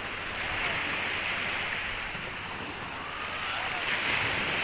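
Small sea waves breaking and washing up a sandy, stony shore, a steady surf hiss that swells again about four seconds in.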